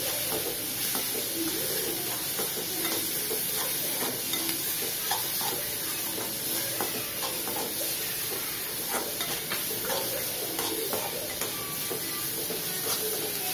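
Chopped onion and grated carrot sautéing in oil in a metal kadai, sizzling steadily while a metal spoon stirs and scrapes them, with frequent light clicks of the spoon against the pan.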